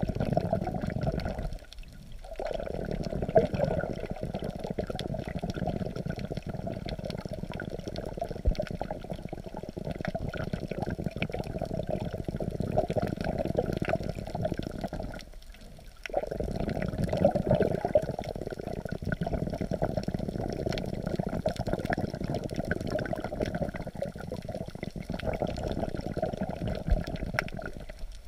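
Muffled rushing and sloshing of seawater, heard from a camera held just under the surface as waves move it. The noise briefly drops away twice, about two seconds in and again about halfway through.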